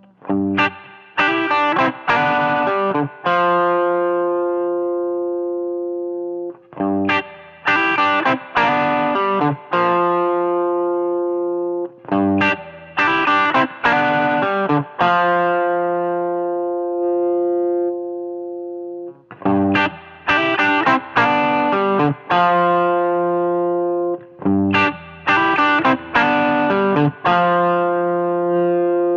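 Electric guitar played through a Kardian Serotonin overdrive pedal, a warm Tube Screamer-style overdrive. It plays phrases of quickly struck chords and notes, each ending in a chord left ringing for several seconds as it fades.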